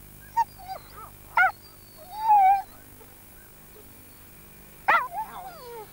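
Coursing sighthounds held back by the collar, yelping and whining in short high calls, with a longer call about two seconds in and a falling one near the end. They are straining in their eagerness to be slipped after the hare.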